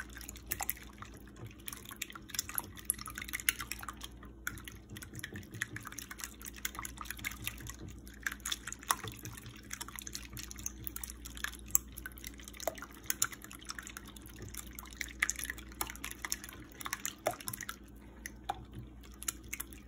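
Metal wire whisk beating raw eggs in a bowl: a fast, uneven run of wet splashes and light clicks.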